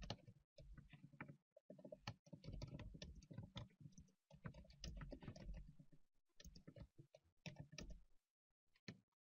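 Faint computer keyboard typing, keystrokes clicking in quick runs broken by short pauses.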